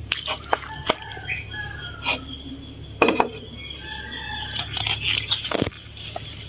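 Chopsticks clicking and tapping against a ceramic bowl as mixed instant noodles are lifted out for plating: a handful of sharp taps spread out over several seconds.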